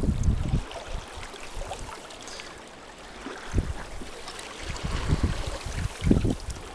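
Water rushing and gurgling along the hull of a canoe under way, with gusts of wind buffeting the microphone, heaviest near the start and again in the last couple of seconds.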